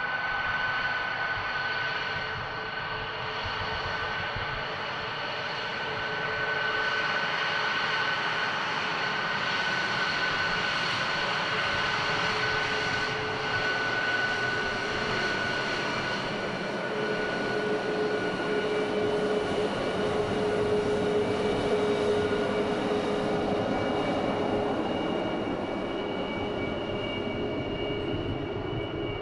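F-22 Raptor's twin Pratt & Whitney F119 turbofans running at taxi power as the jet rolls past: a steady high whine over a rush of jet noise, growing somewhat louder past the middle.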